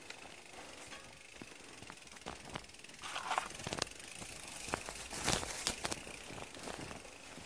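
A bicycle being pushed by hand through rough ground: the rear freewheel ticking, with scattered clicks and rattles and a loud knock about five seconds in.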